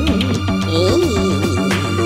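Cartoon background music, with a steady bass line under a wandering melody and a few short percussive clicks.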